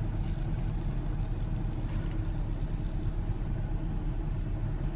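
Steady low rumble of background noise with a low hum underneath, even throughout, with no distinct handling sounds standing out.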